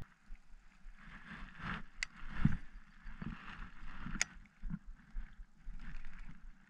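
Faint handling of a baitcasting reel, with soft knocks and two sharp clicks, about two seconds in and about four seconds in.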